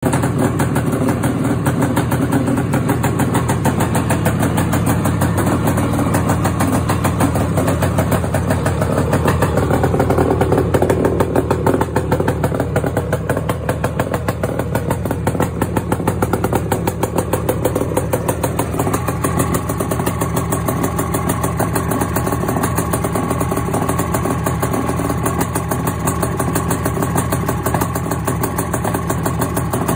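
Suzuki T500's air-cooled two-stroke parallel-twin engine running at a steady idle through its twin exhausts. The revs pick up briefly around ten seconds in, then settle back to idle.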